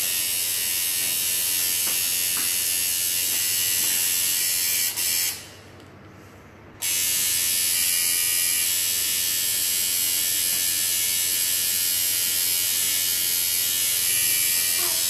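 Tattoo machine buzzing steadily while needling skin, stopping for about a second and a half near the middle and then starting again.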